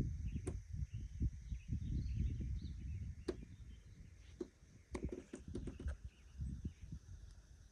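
Woodland ambience: a gusty low rumble, faint bird chirps and a steady high insect hum. A few sharp clicks or snaps come about half a second in, about three seconds in, and in a quick cluster around five to six seconds.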